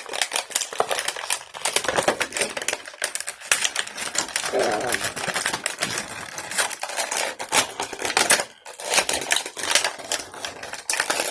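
Plastic toy packaging being handled and pulled apart by hand: a dense run of rapid, irregular clicks and crackles, with a couple of short pauses near the end.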